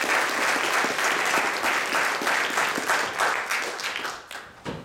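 Audience applauding, the clapping thinning out and fading away near the end, with a single knock as it stops.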